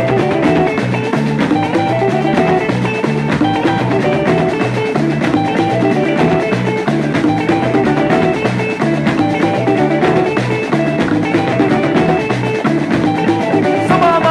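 Instrumental band music with no vocals: a repeating bass riff under electric guitar and a drum kit, at a steady loud level.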